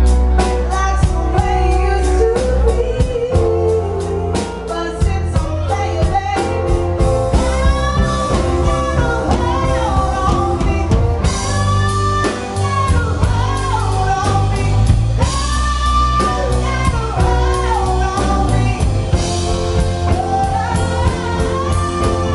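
A live band playing: a woman singing a melody into a microphone over electric bass, guitars and a drum kit.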